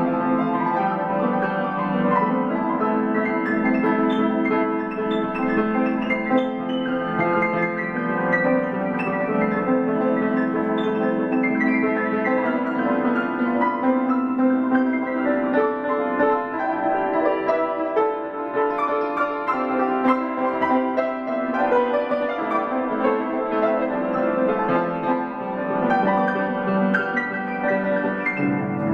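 Grand piano being played: a continuous piece of many overlapping, sustained notes with no pauses.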